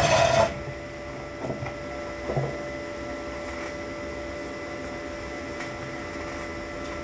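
Steady electrical hum with several constant whining tones from a switched-on inverter welding machine standing idle, its arc not yet struck. A brief clatter of handling comes right at the start, and two faint knocks follow a couple of seconds in.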